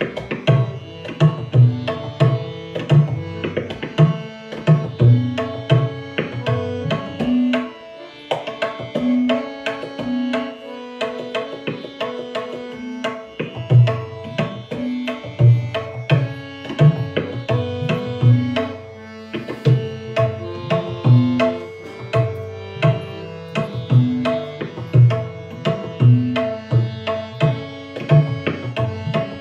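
Tabla solo in teentaal: fast, dense strokes on the dayan and bayan, with deep bass strokes from the bayan. Under it a harmonium plays the repeating nagma (lehra) melody that keeps the 16-beat cycle.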